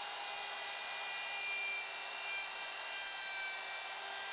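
Electric router with a dovetail bit running at speed, making a light climbing pass across the face of a wooden drawer front: a steady motor whine over the hiss of the bit cutting wood.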